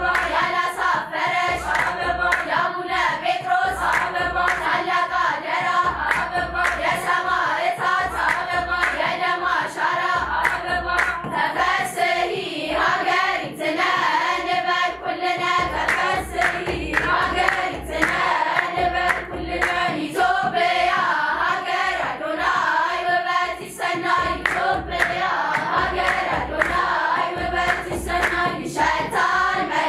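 Girls' choir singing an Ethiopian Orthodox mezmur (hymn) together, with steady rhythmic hand clapping and a low kebero drum beat underneath.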